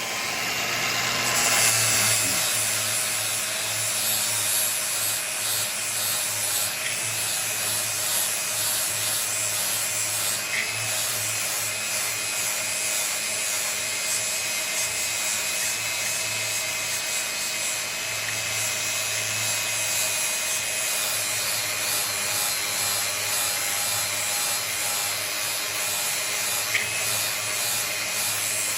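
Grinder with an abrasive pad running steadily against the edge of a steel lawn mower blade, a constant high whine over a grinding hiss, sharpening it down to the thin metal. It comes up to full loudness over the first second or two.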